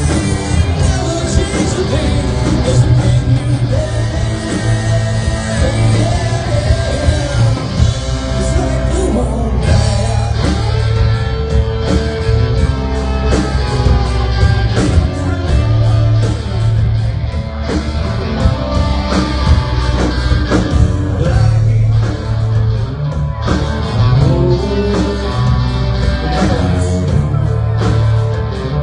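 Local rock band playing live with a singer, loud.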